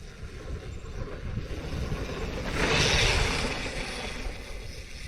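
Wind buffeting the mountain biker's camera microphone over the low rumble of the bike rolling on a dirt trail, with a louder rushing swell near the middle.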